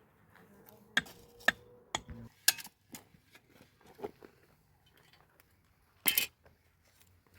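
Scattered sharp knocks and clinks of hard objects striking together, with a louder brief rattle about six seconds in.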